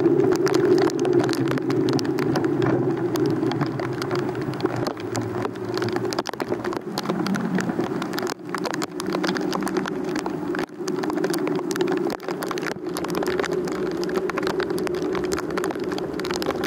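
Rain falling, with many sharp drop taps over a steady low hum.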